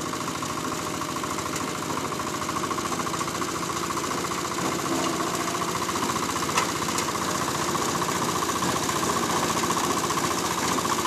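Engine-driven grass chopper running with a fast, even pulse as green forage stalks are fed into it and cut. A single sharp knock comes about six and a half seconds in.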